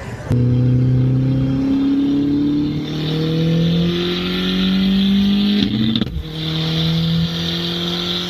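Car engine pulling under acceleration, its note climbing slowly over several seconds. There is a short break about six seconds in, then it carries on at a steadier pitch.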